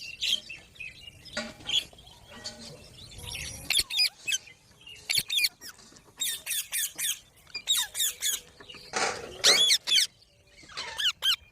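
Pet green parrot calling: a run of short, harsh squawks and screeches with quick bends in pitch, coming in clusters with short pauses between, loudest near the end.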